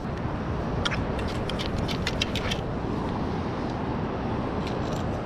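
Steady low rumble of wind on the microphone by the beach, with a quick run of small clicks and rattles lasting about a second and a half, starting about a second in.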